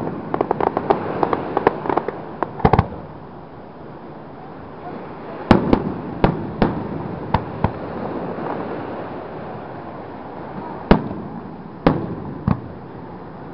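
Fireworks display: a quick run of crackling bangs in the first few seconds, then separate aerial shell bursts, about six more in a cluster a little over halfway through and three near the end, over a steady background hiss.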